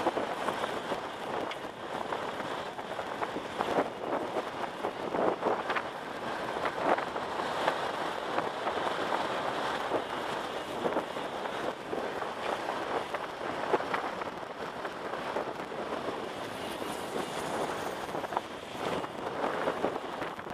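Outdoor wind noise on the microphone: a steady rushing with irregular gusts.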